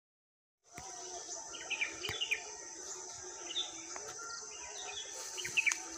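Wild outdoor ambience starting suddenly about a second in: a steady high insect drone with birds chirping over it and a few faint clicks.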